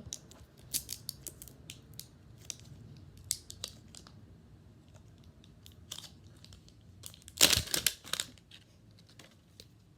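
Plastic toy packaging being handled and unwrapped: scattered crinkles and tears, with one loud burst of crinkling about seven and a half seconds in.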